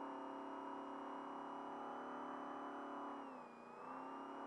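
Trophy truck race engine running hard at steady high revs on a fast dirt straight. About three seconds in, the pitch and level dip briefly, then climb back.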